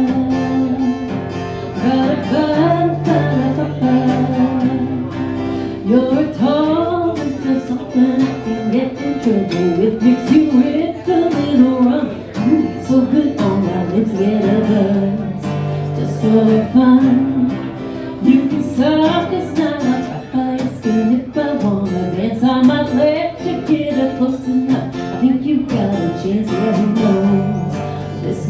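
A woman singing a country song live, accompanying herself on a strummed acoustic guitar.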